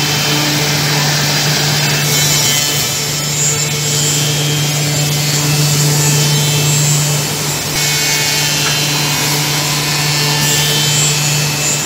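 Woodmaster 10-head CNC mortising machine running, its router spindles cutting mortises in wood: a steady hum under a loud, even cutting noise that changes character a couple of times.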